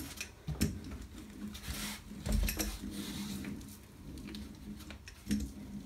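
Hand brayer rolled back and forth over watercolour paper on a gessoed board, pressing the painting down to adhere: soft uneven rolling and rustling with a few light knocks, the loudest about two and a half seconds in.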